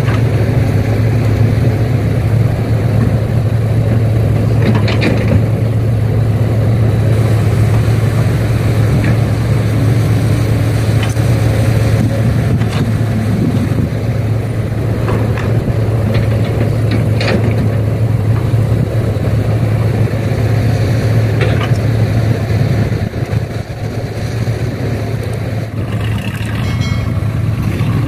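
Heavy diesel engine of an excavator or dump truck running steadily at a loading site, with a few short metal knocks and scrapes from the work.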